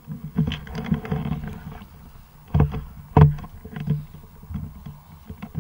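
Handling noise from a helmet-mounted action camera as the helmet is taken off and turned over: rubbing and scraping against the microphone, with sharp knocks about two and a half, three and four seconds in.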